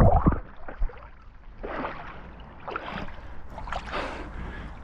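Lake water splashing and sloshing around a swimmer entering cold water, in irregular bursts about once a second. A loud rush stops just after the start.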